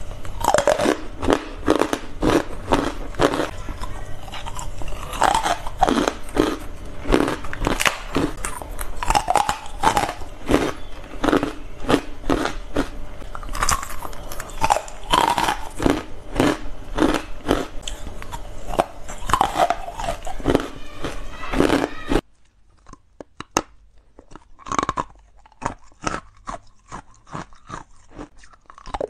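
Close-miked crunching as carbonate ice is bitten and chewed: a dense run of sharp cracks and crunches. Near the end the crunching turns quieter and more spaced out.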